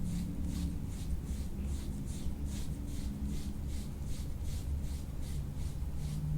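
Soft-tissue scraping tool stroked repeatedly over a patient's skin, a rhythmic rasping at about three strokes a second.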